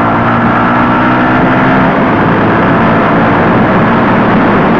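Yamaha R15's 150cc single-cylinder engine pulling hard under full throttle while overtaking a truck, its pitch climbing for about the first two seconds, then fading into a steady rush of wind noise.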